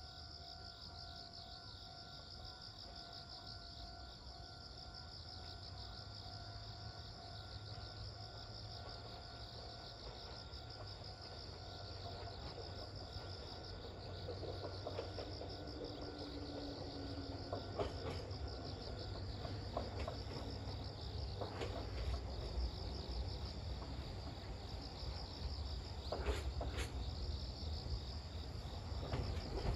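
Insects chirring steadily. A red Meitetsu electric train approaches slowly, its low rumble growing through the second half, with a few sharp wheel clacks near the end.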